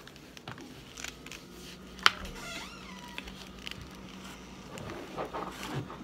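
Biting and chewing a packed brick of cornstarch: crumbly crunching and crackles, with one sharp crack about two seconds in.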